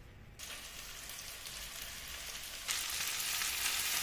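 Spinach, tomato and onion frying in oil and ghee in a stainless steel pan, giving a steady sizzle that starts about half a second in and grows louder a little before the end.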